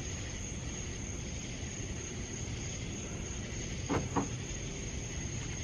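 Crickets chirping at night in a steady high trill over a low steady rumble, with two brief faint sounds about four seconds in.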